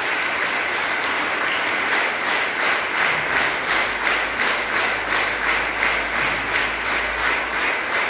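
Audience applauding. From about two seconds in, the clapping falls into a steady rhythm of roughly four to five claps a second.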